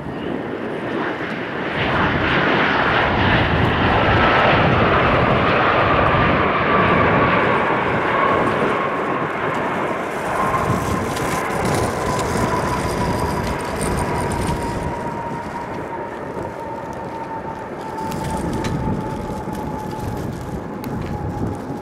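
Airbus A320 jet engines on the runway after landing: a loud rush of engine noise that builds over the first few seconds and then slowly eases, with a high whine that falls steadily in pitch.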